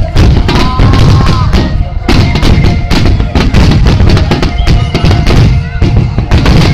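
Starmine fireworks finale: a continuous barrage of aerial shell bursts, loud booms and crackles overlapping one another with no pause.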